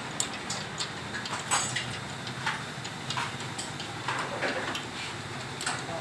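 Irregular light clicks and taps, one or two a second, from hands working at a motorcycle's front wheel hub and drum brake.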